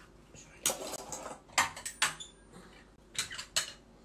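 A knife cutting a lemon on a wooden cutting board, then a plastic hand-held lemon squeezer being handled: about five short knocks and clatters spread across a few seconds.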